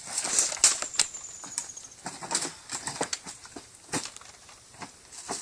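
Airsoft gunfire: a run of sharp, irregular snaps and clicks from shots and BBs striking, thickest in the first second or so and thinning out to scattered single cracks.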